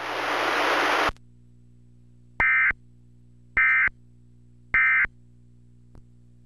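Emergency Alert System end-of-message tones: three short, identical bursts of the SAME digital data tones, evenly spaced about a second apart, marking the end of the tornado warning. They are preceded by about a second of loud hiss, and a faint click follows.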